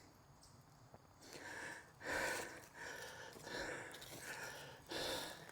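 A man breathing hard close to the microphone, a run of quick heavy breaths and gasps, about two a second, starting about a second in, in the aftermath of yellow jacket stings.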